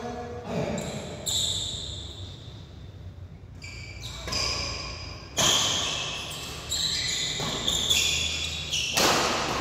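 Badminton rackets striking a shuttlecock in a doubles rally: a series of sharp, ringing hits about a second apart, the loudest a little past halfway and near the end, echoing in a large hall.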